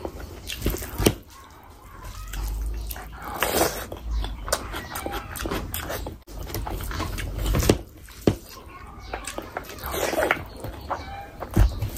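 Close-miked mouth sounds of chicken biryani eaten by hand: chewing and lip smacking with irregular wet clicks, and squelches of fingers in the rice.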